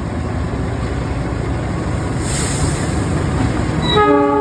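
Diesel locomotive running with a steady rumble, with a brief hiss about two seconds in. Near the end its horn comes in suddenly, a loud steady blast of several tones at once.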